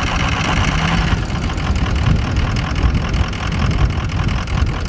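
Pickup truck engine running steadily while it pulls a stuck SUV out of snow on a tow strap, with a higher hiss over it that eases about a second in.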